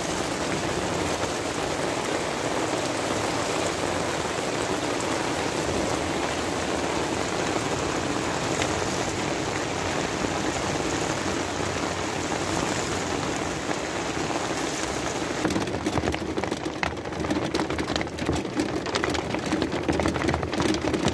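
Heavy rain falling steadily on an awning and wet asphalt. About fifteen seconds in, it changes to a louder, irregular pattering of raindrops hitting the van's roof, heard from inside the vehicle.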